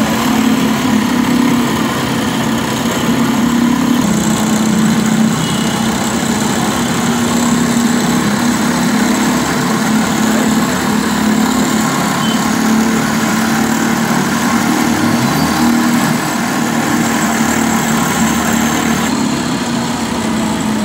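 Cotton candy machine running, its motor spinning the heated head in the bowl with a steady, even hum.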